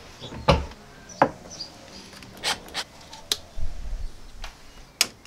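Handling noises of plastic push-fit plumbing fittings and tubing being fitted to a water pump: a handful of short, sharp clicks and taps spread through, with soft rubbing between.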